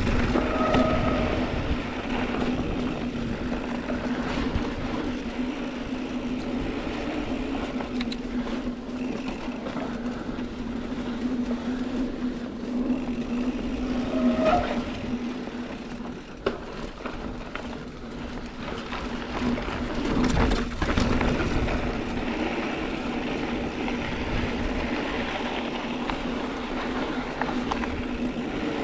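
Mountain bike rolling along a dirt trail: steady tyre and ride noise with a low hum, and a few sharp knocks from bumps along the way.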